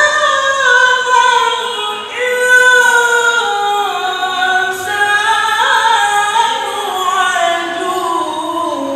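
A male qari chanting Qur'an recitation (tilawah) in a high voice, drawing out long ornamented notes that step gradually lower in pitch, with a short break about two seconds in.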